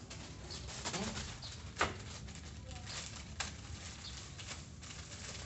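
Scissors snipping into a plastic mailing bag and the plastic crinkling as a parcel is cut open, heard as a few separate sharp clicks and crackles.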